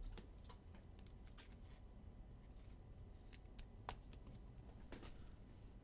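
Near silence with faint, scattered clicks and rustles of trading cards being handled. One sharper click comes about four seconds in.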